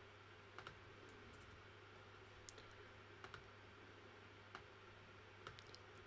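Near silence with a handful of faint, scattered clicks from a computer keyboard and mouse, over a low steady hum.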